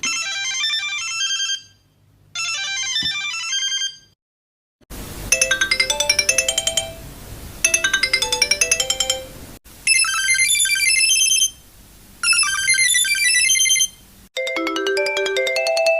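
Electronic ringtone-style melodies, bright chiming notes played as a string of short separate tunes, each a few seconds long and parted by brief pauses.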